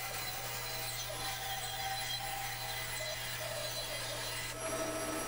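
Bandsaw running steadily, its blade cutting through a thick walnut block to free the round bead blanks that were bored with a hole saw.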